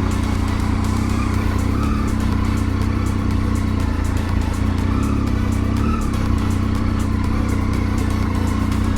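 Motorcycle engine running steadily under way, its pitch holding nearly constant.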